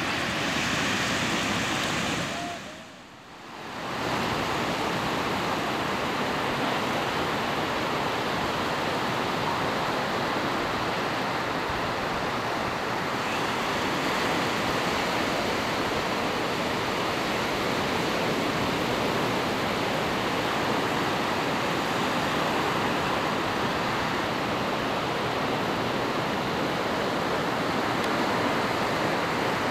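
Steady rushing noise of ocean surf breaking on a beach. The sound drops away briefly about three seconds in, then returns.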